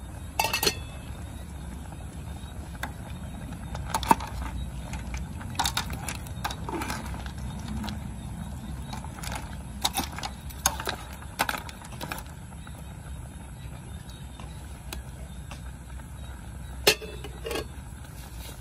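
Pot of crabs boiling on a portable gas stove, with a steady low rumble from the burner and the boil. A metal ladle clinks against the aluminium pot now and then as it stirs the crabs, the loudest clink about 17 seconds in.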